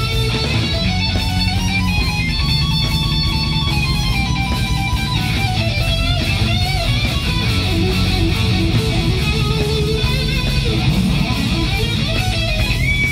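Live hard-rock band playing: an electric lead guitar plays a solo line with bends and vibrato over distorted rhythm guitar, bass guitar and drums.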